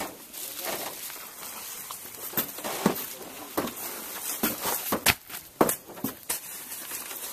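Irregular thuds and scuffs of heavy cement bags being handled and dropped during unloading, a few sharp knocks clustered in the second half.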